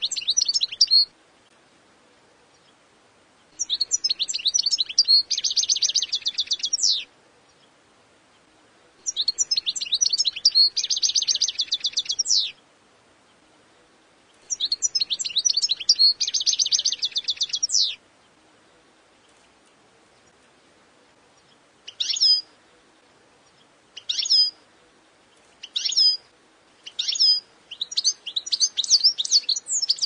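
European goldfinch singing: bursts of high twittering song about three seconds long, each ending in a rapid trill, repeated after pauses of about two seconds. In the second half come short single call notes that quicken into fast twittering near the end.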